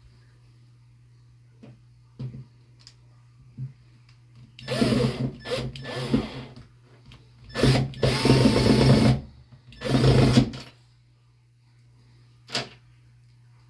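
Hyper Tough 20V cordless drill driving screws through a towel-bar mounting bracket into wall anchors, in about five short bursts, the longest a little over a second. A single click follows near the end.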